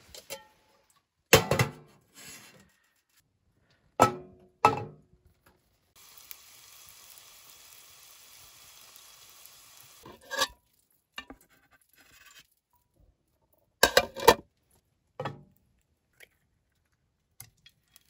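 Camp cookware being handled on a wood stove top: several sharp clanks and knocks of a metal frying pan and a metal plate, with a steady hiss for about four seconds in the middle that cuts off suddenly.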